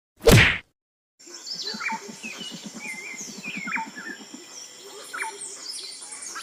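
A sudden loud burst, like a hit, right at the start. Then birds chirping and calling, with quick downward-sliding chirps and a rapid low pulsing call underneath.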